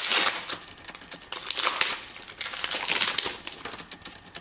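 Crinkling of a trading card pack's foil wrapper as it is handled and opened, in about three bursts.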